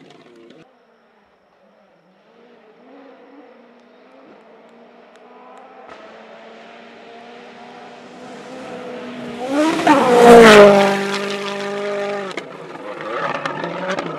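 Rally car engine approaching at speed, growing louder until it passes about ten seconds in, where its pitch drops. It runs on at a held note, cuts briefly, then revs up again near the end.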